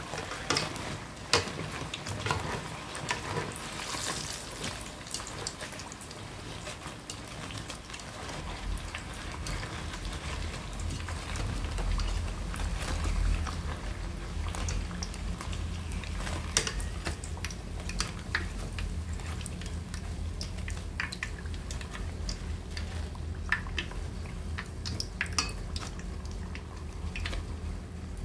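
Battered sweet potato pieces deep-frying in hot oil with a steady sizzle, and scattered sharp clicks as wooden chopsticks and a wire mesh strainer knock against the pan while the fritters are turned and lifted out. A low hum comes in about a third of the way through.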